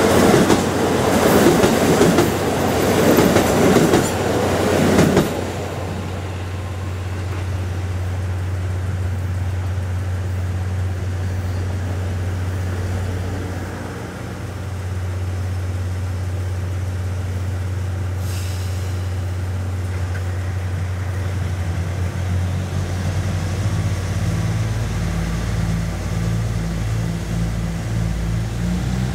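A KiHa 85 diesel express train passing close by at speed for the first five seconds, a loud rushing rumble of wheels and engines, then the steady low hum of a KiYa 95 track-inspection diesel railcar idling. A brief hiss comes about two-thirds through, and near the end the railcar's engine note deepens and grows a little louder.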